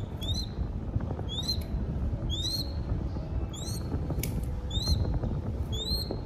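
Crested goshawk chick giving short, high, upward-sliding squeals, each ending in a brief held note, about one a second, which fits food begging. A steady low rumble runs underneath.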